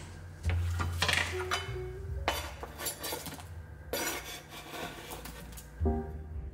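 Background music over kitchen clatter: chopped potato scraped off a wooden cutting board with a knife and dropping into a pot, in several short bursts.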